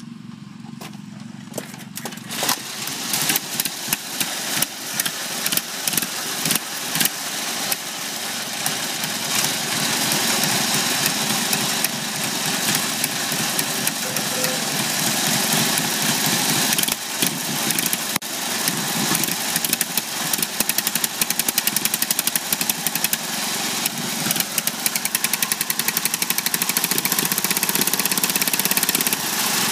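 Straight-piped riding-mower engine starting about two seconds in, then running with a rapid, uneven popping exhaust note that grows louder and faster until about ten seconds in and then holds.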